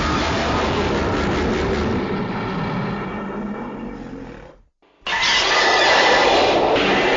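King Ghidorah monster roar sound effect: a rapidly pulsing roar that fades out over about four seconds, then a second roar starting about five seconds in.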